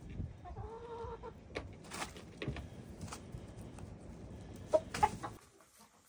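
Hens clucking in a coop, one giving a drawn-out call about a second in, among scattered clicks and knocks. Two sharp knocks near the end are the loudest sounds.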